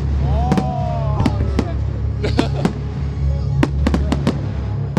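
Display fireworks bursting: a dozen or so sharp bangs at irregular intervals over a steady low rumble.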